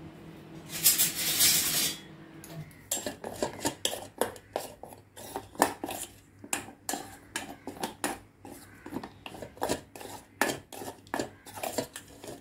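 Metal spoon stirring in a stainless steel bowl over a pot of hot water, melting white chocolate and cream into ganache. It makes a second-long scrape about a second in, then keeps clinking and scraping against the bowl's sides, several irregular clinks a second.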